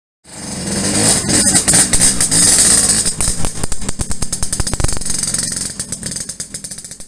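Yamaha V80's small two-stroke single-cylinder engine revving as the moped pulls away, starting suddenly and then fading as the bike rides off.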